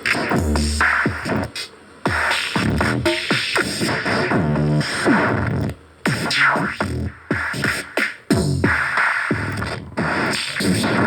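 Electronic music with choppy, cut-up sounds: short rising and falling sweeps and abrupt drop-outs every second or so.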